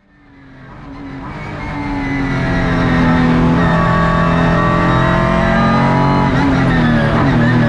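Ligier JS2-R race car's Ford 3.7-litre V6 running hard at steady high revs, heard from inside the cockpit. The sound fades in over the first couple of seconds, and the pitch dips briefly near the end.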